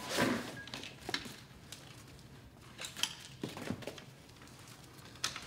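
Handling noise from a LUCAS 2 chest-compression device being lifted out of its padded carry bag: a handful of separate knocks and clicks of hard plastic, with fabric rustling between them.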